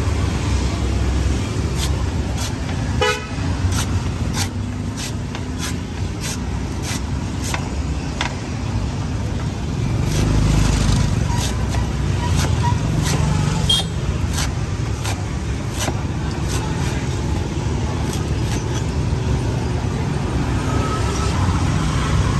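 A large knife chopping into green coconut husks, a string of sharp hits over steady street traffic, with a short car horn about three seconds in.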